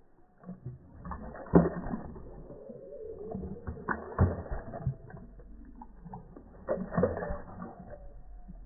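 Rhodesian Ridgeback lapping water from a pond, slowed down: drawn-out, deep splashing and gurgling as the tongue scoops water, with three louder splashes a few seconds apart.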